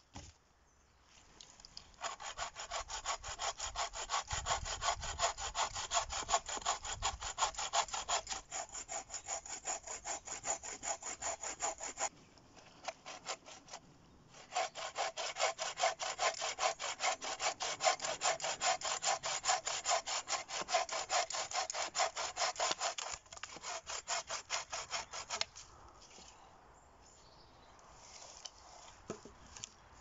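Bow saw cutting through a birch branch with quick, even back-and-forth strokes, in two long bouts with a short break near the middle. The sawing stops a few seconds before the end.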